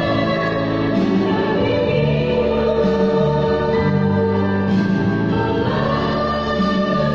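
A virtual choir singing in parts, holding long sustained notes that change slowly, over a steady low bass line.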